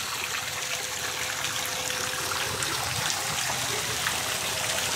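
Steady running water: a pipe trickling and pouring into a stone basin.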